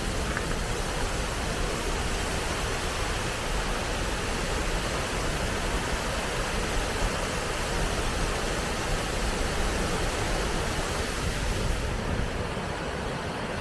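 Water pouring over a river dam: a steady, even rush of falling water, with the top end easing slightly near the end.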